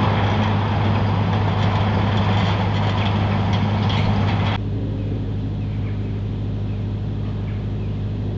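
Steady low mechanical hum, like a running engine or machine, under a loud rushing noise; the rushing cuts off sharply about four and a half seconds in and the hum carries on alone.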